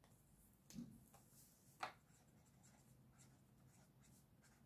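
Faint pen-on-paper writing sounds as a pen is drawn across a planner page, with two light ticks about one and two seconds in.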